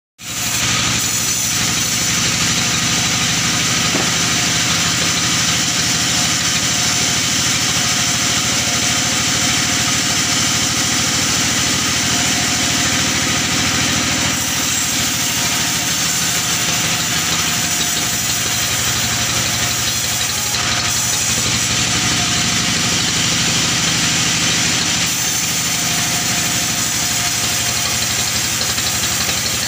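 Band sawmill running steadily, its vertical blade ripping a log lengthwise into planks, with a steady machine drone under the hiss of the cut.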